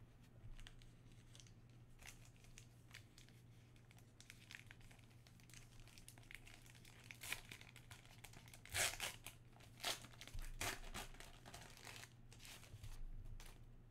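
Wrapper of a 1990-91 NBA Hoops basketball card pack crinkling as it is handled and torn open, faint at first, with a few louder rips and crinkles in the second half.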